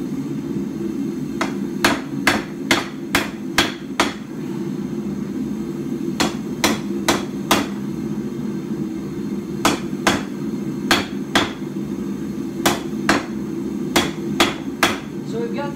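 Hand hammer striking a red-hot mild-steel bar on an anvil while drawing out a taper. Runs of four to seven quick blows, about two to three a second, come with short pauses between them.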